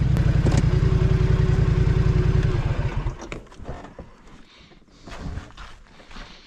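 ATV (four-wheeler) engine running with a steady whine, then shut off about two and a half seconds in, the firing slowing and dying away. Quieter scattered clicks and scuffs follow.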